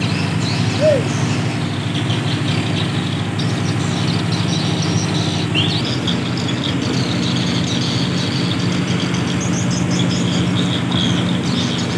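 Small engine running steadily at an even speed with a continuous hum. A few short high chirps and squeaks sound over it.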